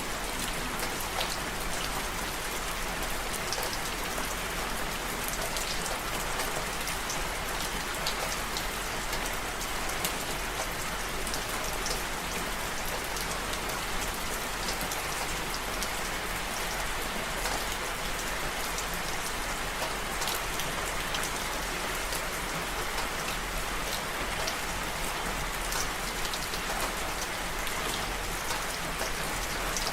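Steady rain falling and pattering on a surface, with many small drops ticking through it at an even level.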